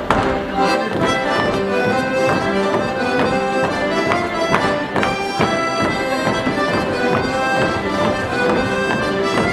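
Live traditional folk dance tune led by a diatonic accordion, with wooden clogs knocking on the wooden stage now and then.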